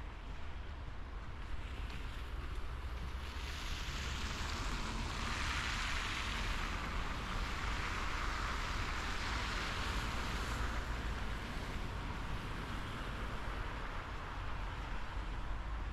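Cars passing on a slushy, wet street: a hiss of tyres on the wet road swells from about three seconds in, is loudest midway and fades away, over a steady low rumble.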